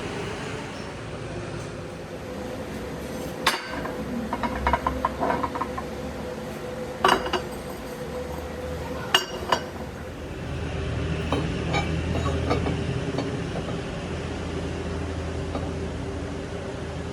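Metal tools and steel parts clinking and knocking a few times over the steady hum of workshop machinery, with a cluster of light clinks a few seconds in and two sharp knocks near the middle.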